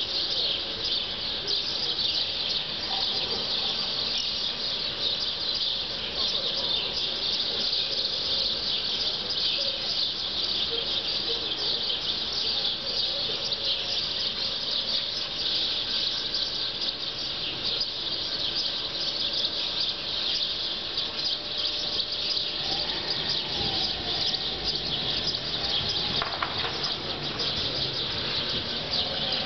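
Continuous high-pitched shrill insect chorus with a shimmering texture, with a few faint bird calls in the second half.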